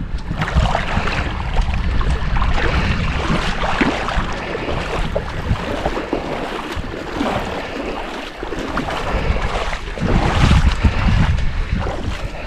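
Wind buffeting the microphone with a heavy rumble, along with water sloshing and splashing in uneven bursts.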